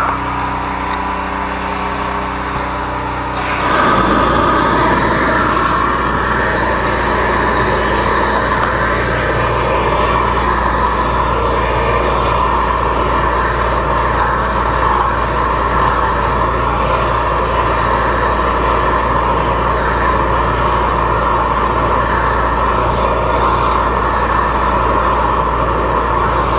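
A 13-horsepower high-pressure drain jetter running steadily. About three and a half seconds in, a loud hissing rush joins it as the water jet comes on to drive the rear-jet nozzle into the wastewater drain line.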